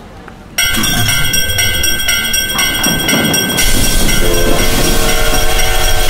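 Railroad crossing alarm bell starts ringing about half a second in, a fast repeating clang. A few seconds later a loud steam hiss and a held steam-train whistle join it as the locomotive arrives.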